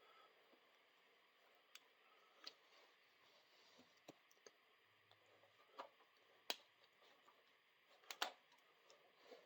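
Faint, scattered clicks and taps of hand tools on metal brake parts while working a brake cable loose, about eight in all with the sharpest about six and a half seconds in.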